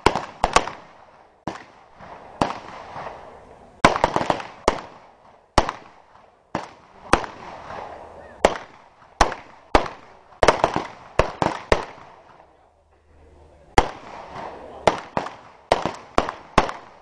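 Handguns fired by several shooters along a firing line: an irregular string of many sharp pistol shots, sometimes two or three in quick succession, each trailing off in a short echo. A brief lull comes about three-quarters of the way through.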